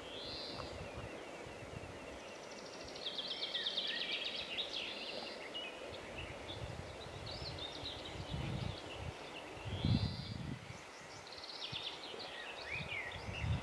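Small songbirds singing, with repeated chirps and trills, over gusts of wind buffeting the microphone, the strongest gust about ten seconds in.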